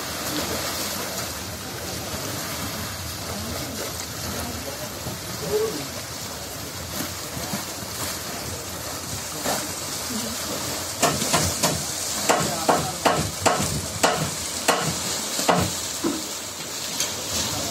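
Small waves washing and fizzing against a seawall and shore, with wind hiss on the microphone. About eleven seconds in comes a run of about a dozen sharp slaps, two or three a second, louder than the wash.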